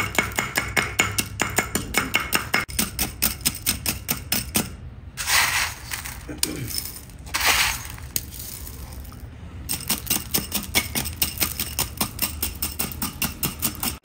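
Aggregate-testing machine striking a sample of gravel with rapid, even metallic knocks, about four a second, to crush it for a strength test. The knocking stops for a couple of seconds twice, with short noisy bursts in the gaps.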